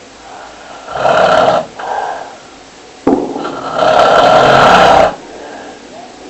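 Loud snoring: a short snore about a second in, then a longer one that starts sharply at about three seconds and lasts some two seconds.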